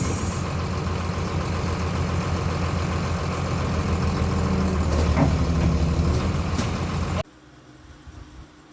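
An engine running steadily at idle, with a couple of short knocks over it; it cuts off suddenly about seven seconds in, leaving a much quieter background.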